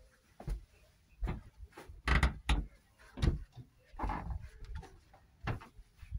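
Irregular thumps and rustles of someone walking along a houseboat's narrow corridor and brushing past its hanging fabric curtains: footsteps and cloth swishing, with a few sharper knocks.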